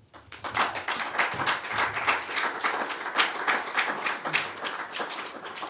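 Audience applauding, a dense run of many hands clapping that starts a moment in and eases off a little near the end.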